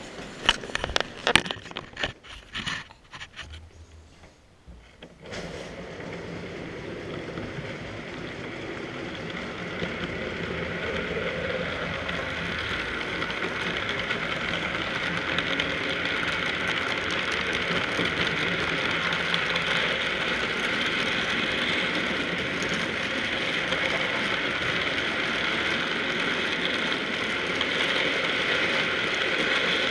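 A few sharp knocks in the first seconds, then a model freight train's wagons rolling past close by: a steady rattle of small wheels on the rails that grows louder until about fifteen seconds in, then holds.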